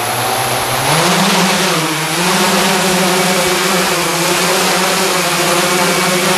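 Large hexacopter's six electric motors and propellers, driven by Castle Creations Phoenix Edge 100 speed controllers, lifting off and hovering. A steady whirring drone over a rush of propeller wash; its pitch rises about a second in as the craft climbs, dips briefly, then holds.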